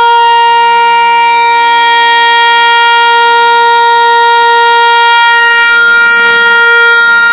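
An aftermarket vehicle horn sounding one long, unbroken note that holds the same pitch throughout.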